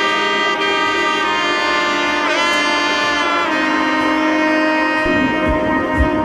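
Background music: a sustained melody over held chords, with a bass drum beat of about two thumps a second coming in near the end.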